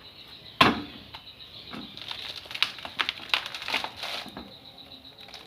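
Coconut husk being pierced and torn on a hand-operated dehusking machine: one sharp knock about half a second in, then irregular crackling and snapping as the fibrous husk is pried apart.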